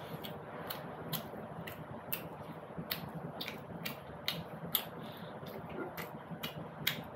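Close-up eating sounds: a person chewing jalebi and puri, with wet mouth clicks and lip smacks coming irregularly, about two a second.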